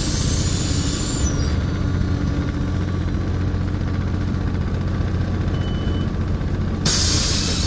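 MAZ-203 city bus heard from inside the cabin while under way: a steady low engine and road rumble, with a high hiss that stops about a second and a half in and comes back near the end, and a brief falling squeal about a second in.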